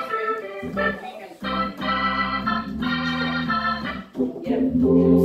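Crumar Mojo Dual drawbar organ, a Hammond-style clone, playing blues chords over a bass line that comes in under them about a second in, the low end reinforced through a bass amp. There is a short break about four seconds in, then a louder held chord.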